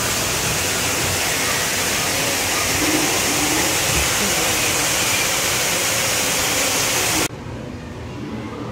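Steady, loud rush of falling water that cuts off suddenly about seven seconds in, leaving a quieter murmur.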